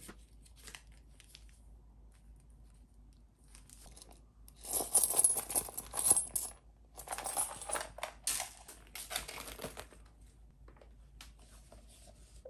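Loose coins jingling and clinking inside a small zippered coin pouch as it is handled and opened, in several bursts over about five seconds, after a few seconds of faint handling clicks.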